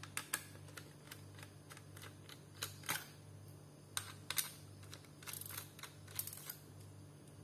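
Scattered small clicks and taps of a screwdriver working the screws that hold a laptop's hard disk, with a couple of short scratchy rasps in the second half, over a steady low hum.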